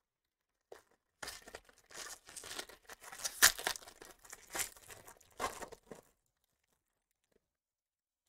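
Foil wrapper of a Bowman Jumbo baseball card pack being torn open and crinkled by hand: a run of crackling tears, loudest about halfway through, that stops about two seconds before the end.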